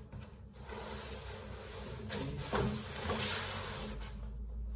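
Cardboard box flaps rustling and a plastic-wrapped canvas print scraping and sliding out of the box, the rustle growing louder about two seconds in with a knock of the frame against the box.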